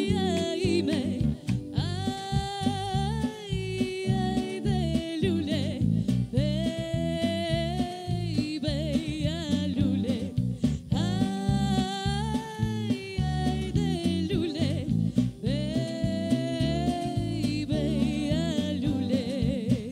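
A woman singing a Shkodran song, Albanian urban folk style, with a wavering vibrato on long held notes, phrases breaking off every few seconds. A small live band accompanies her, led by a strummed acoustic guitar.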